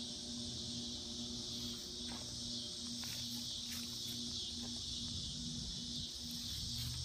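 Steady high-pitched chirring of insects, crickets or similar, with a low tone pulsing about twice a second underneath and a few faint clicks.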